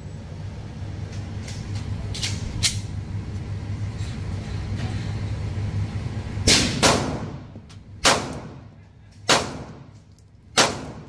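PSA Dagger 9mm pistol fired in slow single shots at an indoor range. The loud shots begin about six and a half seconds in, two close together and then one every second and a quarter or so, each followed by a ringing echo off the range. A few fainter sharp reports come in the first three seconds.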